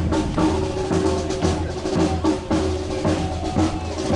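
Parade marching band playing, with held instrument notes over a steady beat of bass drum and snare drum.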